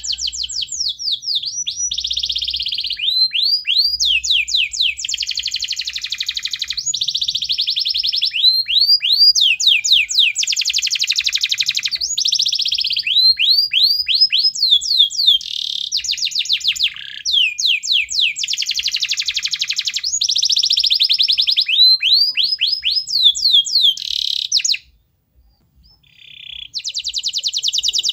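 Domestic canary singing vigorously: a long, high-pitched song of fast trills and rolls mixed with rapid downward-sweeping notes. It breaks off for about two seconds near the end, then starts again.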